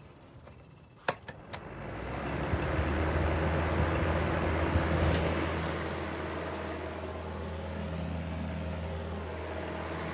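A switch clicks about a second in, then the electric fan heater's fan motor starts up and runs with a steady hum and rush of air. The owner says the heater blows only cold air: the fan works but the heating element no longer heats.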